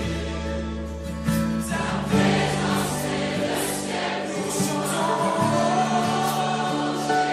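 Christian worship music: a choir singing over sustained chords.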